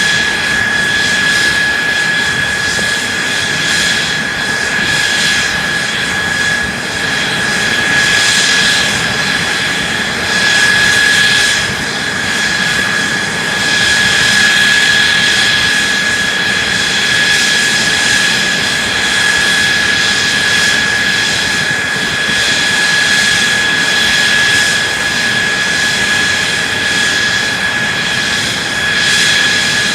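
Mitsubishi F-2 fighter's F110 turbofan engine running steadily during a ground run: a loud continuous rush of exhaust with a steady high whine.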